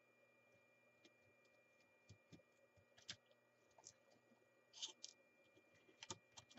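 Faint, scattered clicks and taps of a small plastic radio case, its batteries and circuit board being handled and taken apart, the loudest about three and five seconds in.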